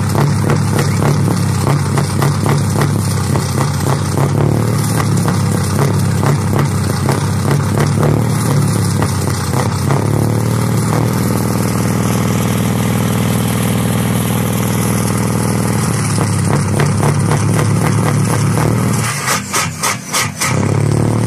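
Scania R620's V8 diesel engine running loud and steady, heard close to its exhaust. Its note shifts about halfway through, and near the end the loudness dips sharply a few times.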